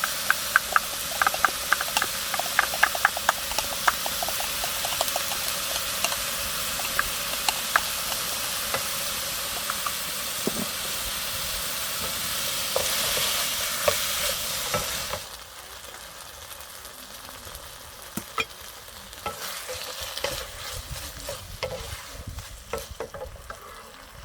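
Food sizzling in a frying pan as it is stir-fried, with a utensil clicking and scraping against the pan, the clicks quickest in the first few seconds. About fifteen seconds in, the sizzle suddenly drops to a much quieter hiss with only occasional clicks.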